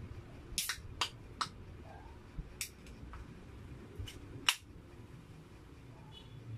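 Plastic bottle cap being twisted and handled: about six sharp clicks and snaps, spread irregularly, with the loudest one about four and a half seconds in.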